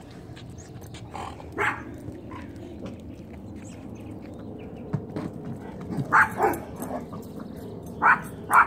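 Dogs barking in short, sharp barks: one about a second and a half in, then a run of several from about six seconds to the end. The later barks are alert barking at a squirrel beyond the fence.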